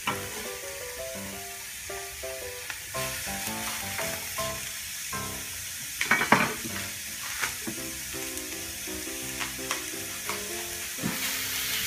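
Diced onion and butter sizzling in a stainless steel frying pan, a steady hiss, with a few sharp knocks from the knife on a wooden cutting board, the loudest about six seconds in.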